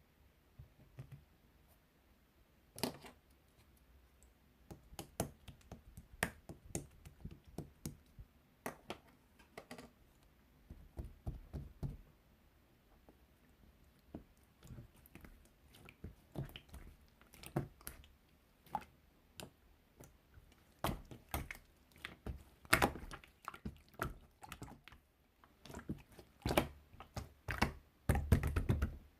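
Marbled slime being played with by hand: irregular sharp clicks and pops as it is pressed, stretched and folded, with soft squishes and a few denser clusters of popping near the end.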